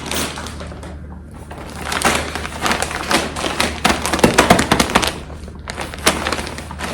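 Parcel packaging being handled and opened: a dense run of crinkling and crackling of the wrapping, strongest in the middle, with a few sharper clicks and taps.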